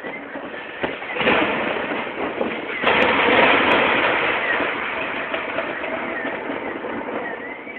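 Thunder: a first clap about a second in, a louder peal about three seconds in, then a rumble that slowly fades.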